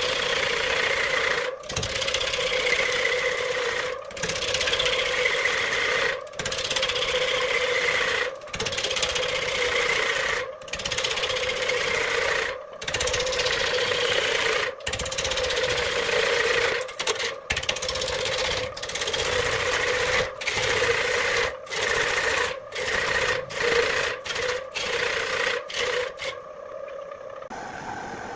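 A wood lathe spinning a large block of glued-up wooden discs while a turning tool cuts into it: a loud hiss of cutting over a steady hum. The sound is broken by short gaps every second or two, which come closer together in the second half. The cutting drops away near the end.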